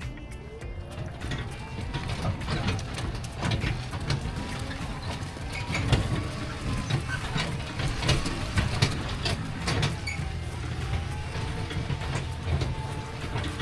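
A loaded trike towing a small trailer on the move, with a low rumble, a rising and falling motor whine, and many clicks and knocks as the load and trailer rattle.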